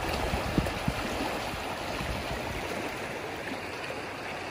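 Small river running over rocks: a steady rush of flowing water.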